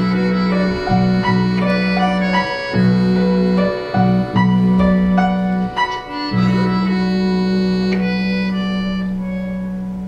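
Small ensemble of accordion, electronic keyboard and electric guitar playing a melody over held bass notes. About six seconds in it settles on one long held chord that slowly fades.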